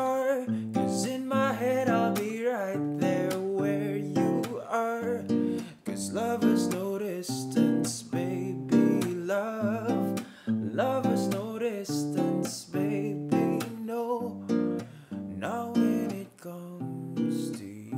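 Acoustic guitar strumming chords under a man's singing voice: a solo acoustic song performance. The chords dip briefly a few times, and a held chord rings out near the end.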